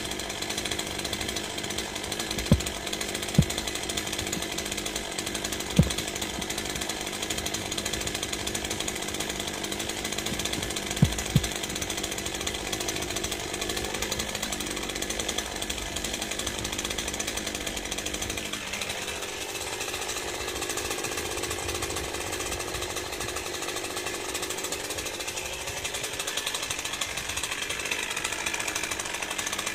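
Stihl MS 201 C-M two-stroke chainsaw idling steadily between cuts, with a few sharp knocks in the first dozen seconds.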